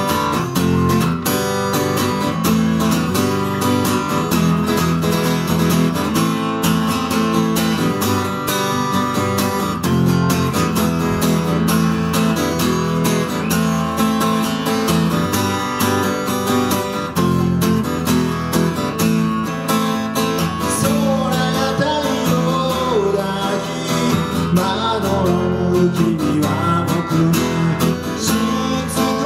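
Acoustic guitar strummed steadily, opening a song. A man's voice starts singing along about twenty seconds in.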